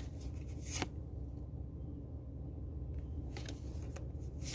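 Pokémon trading cards sliding against one another as they are flipped through one at a time: a few brief, soft swishes over a low steady hum.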